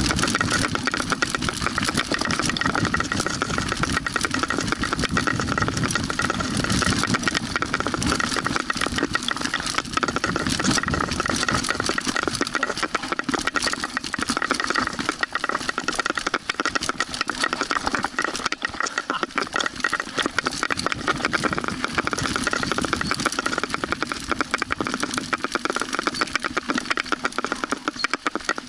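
Mountain bike descending a dirt and stone forest trail: continuous rattle of the bike and its tyres on the ground.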